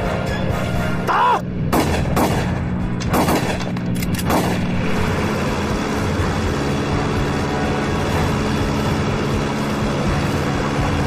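About half a dozen rifle shots, irregularly spaced over about three seconds, then a steady drone of a propeller warplane's engine that runs on unchanged.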